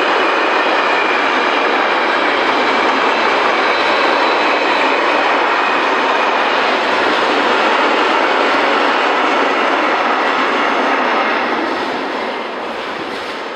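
A freight train of empty flat wagons rolling past on the rails: a steady rushing of wheels on track that fades near the end as the last wagon goes by.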